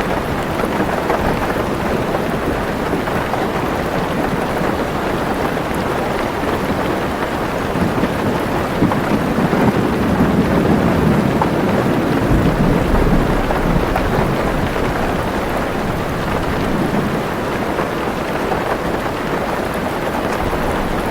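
Heavy rain pattering steadily on a car's roof and windows. A low roll of thunder swells and fades in the middle.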